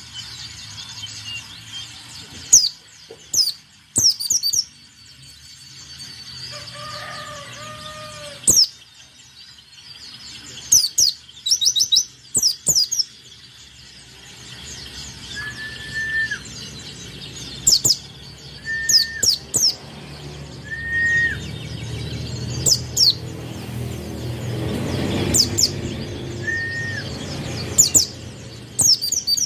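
White-eye (pleci) singing: clusters of quick, very high, sharply falling notes repeated every second or few. Fainter, lower short calls sound between them, and a low rumble swells and fades in the second half.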